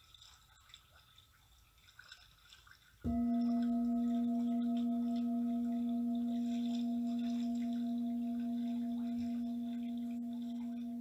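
Singing bowl struck once about three seconds in, then ringing on as a steady low tone with fainter overtones above it, slowly fading. Before the strike, only faint room tone.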